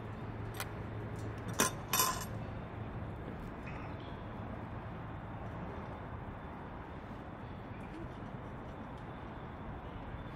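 Two sharp metallic clinks about half a second apart, a second and a half to two seconds in, over the steady rush of a wood stove fire with scattered faint crackles.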